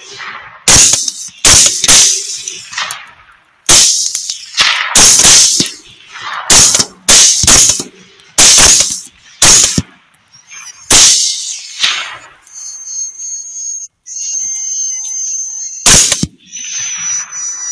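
Rapid rifle fire at close range: about a dozen very loud shots over the first eleven seconds, sometimes two within a second, each with a short echo, then one more shot near the end. A steady high-pitched whine sounds through the last few seconds.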